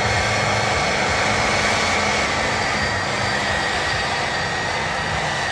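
Lifted diesel GMC pickup at full throttle with its rear tires spinning on pavement. Loud, steady engine and tire noise, with a high whine riding on top.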